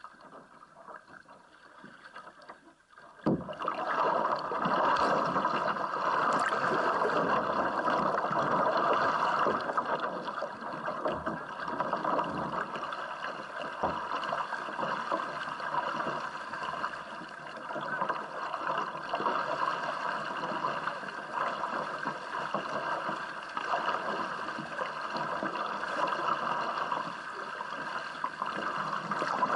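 Water splashing and washing against a polo kayak's hull and paddle, picked up by an action camera on the bow. It starts with a sudden thump about three seconds in and runs on as a steady rushing wash, loudest for the next few seconds.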